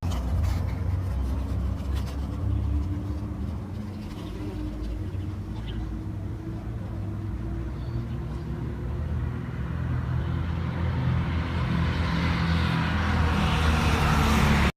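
Steady low rumble with a hum, and a hiss that grows louder toward the end.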